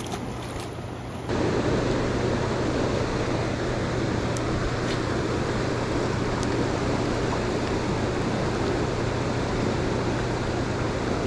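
Steady rush of fast-flowing water in the discharge below a dam powerhouse, stepping up louder a little over a second in.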